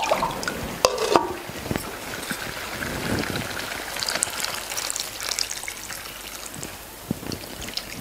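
Water poured from a bowl into a clay pot of hot frying masala paste, the paste sizzling as the water runs in. A couple of sharp knocks come in the first second.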